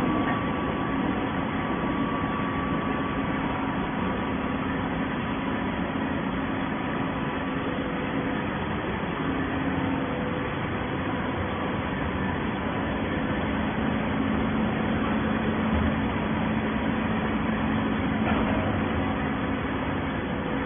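Steady running noise of a scrap-carton baling line, the conveyor and horizontal baler working, heard as an even drone with a constant low hum.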